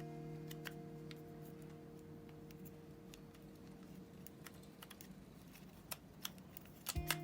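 Scattered light clicks and taps of small lens parts and tools being handled, over a held music chord that fades out over the first five seconds. Guitar music comes back in at the very end.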